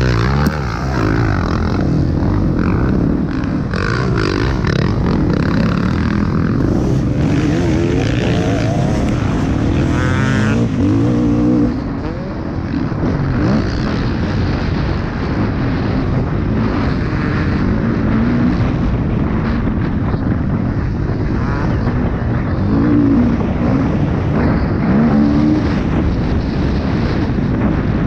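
Motocross bike engine revving up and down hard as it is ridden around a dirt track, its pitch rising and falling with the throttle. The sound dips briefly about twelve seconds in.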